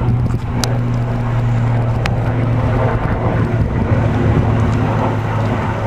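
Military helicopter flying overhead: a loud, steady low drone of rotor and engine.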